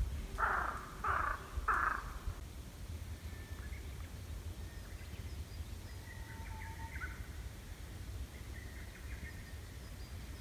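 A crow cawing three times in quick succession, followed by faint, scattered chirps of small birds over a steady low rumble.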